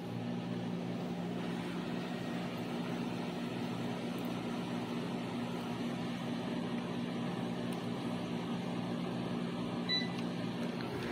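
Kolin window-type air conditioner running with a steady hum and rush of air from its fan. About ten seconds in, the unit gives a short beep as it takes a command from its remote control.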